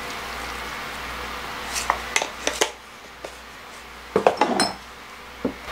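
Tableware handled on a wooden table: a few light clicks, then a louder clatter of clinks and knocks with a brief ring about four seconds in, and one last click near the end.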